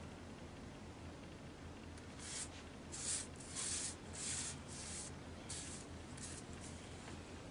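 A spiral sketchbook being turned and slid about on a wooden desk: about eight short, dry paper swishes, starting about two seconds in.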